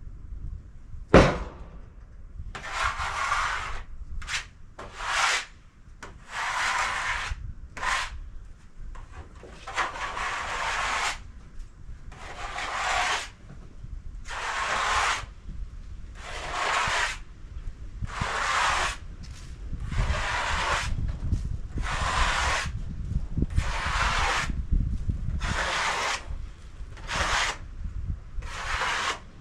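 A sharp knock about a second in, then repeated scraping strokes on wood, each about a second long, about one every two seconds.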